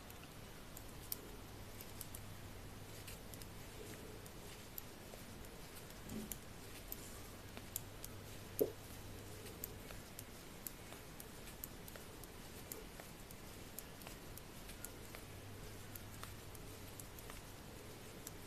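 Faint, irregular clicking of CraSy Trio flexible knitting needles' metal tips as stitches are knitted, with one louder click about eight and a half seconds in.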